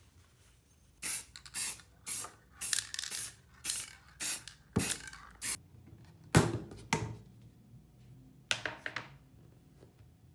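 About a dozen short hissing bursts, roughly two a second, with a pause before the last two; two of them carry a dull low thump.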